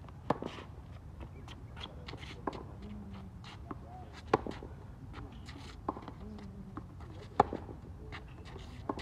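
Tennis rally on a hard court: sharp pops of racket strings hitting the ball and the ball bouncing, about every second and a half, with shoe scuffs and footsteps between shots.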